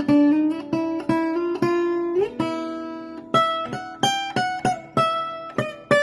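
1950s Joseph Rossmeisl archtop guitar played as a melodic line of single plucked notes, each ringing out and fading, with one note sliding up about two seconds in and quicker notes in the second half.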